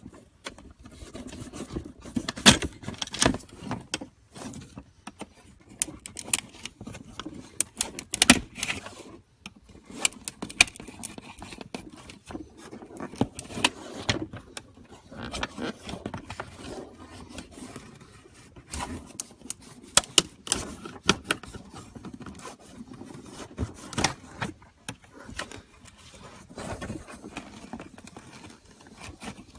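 Hand-tool work on a plastic hood vent and its backing plate: irregular scraping and rubbing with sharp clicks and knocks scattered throughout.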